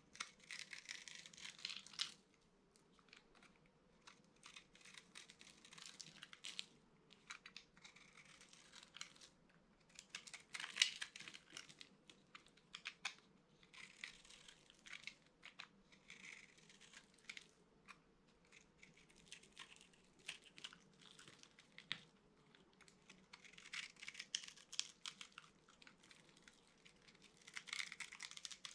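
Dry soap being crushed, in crisp crunching crackles that come in about ten bursts of a second or two, with short quiet pauses between them.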